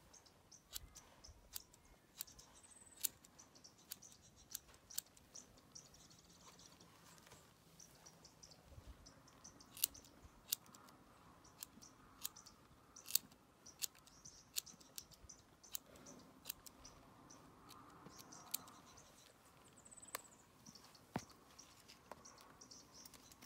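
Scissors snipping through horse tail hair as the ends of the tail are trimmed: a string of short, sharp snips, irregular at roughly one or two a second. Birds chirp faintly in the background.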